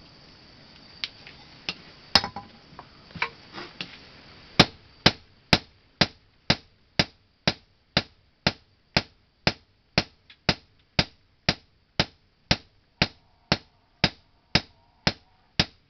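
Blacksmith's hand hammer striking a sickle blade. There are a few scattered blows, then, about four and a half seconds in, a steady run of ringing strikes at about two a second.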